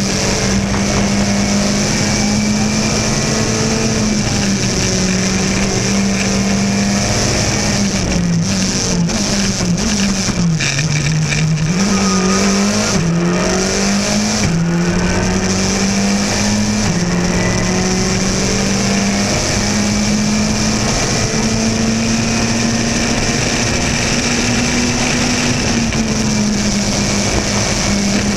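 In-car sound of a Skoda Fabia RS Rally2's turbocharged four-cylinder engine at full stage pace, holding a steady high pitch. From about eight seconds in, the revs drop and wobble for a slower section, with a few short sharp cracks, then climb back to a steady high pitch.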